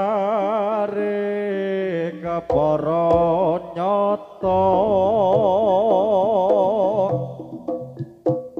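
Live Javanese jaranan music: a held, wavering melody line over a steady low note, broken by a few short gaps and trailing into scattered short notes near the end.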